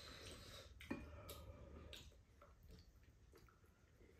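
Faint clicks of spoons and chopsticks against bowls during a quiet meal, with soft eating sounds; one clearer click about a second in.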